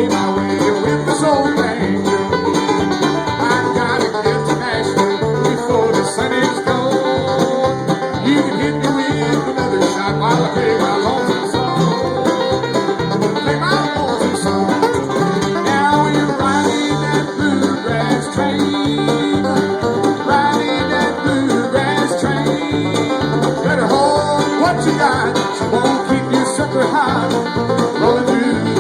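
Live bluegrass band playing an instrumental passage: fast picked string leads over strummed guitar and a steady, pulsing bass beat.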